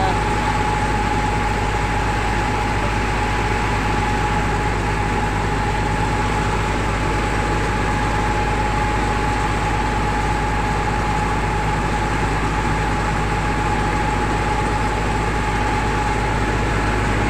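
Sewer-cleaning truck's engine and pump running steadily with a constant whine, powering the hoses that work and suck water out of a clogged street manhole.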